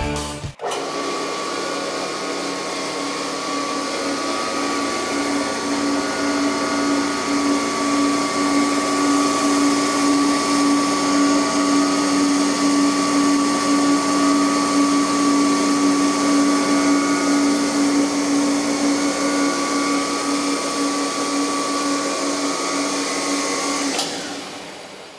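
REMA DMLK 30 table circular saw running with no load, its blade spinning freely with a steady hum and a whine. Near the end it is switched off and the sound falls away as the motor winds down.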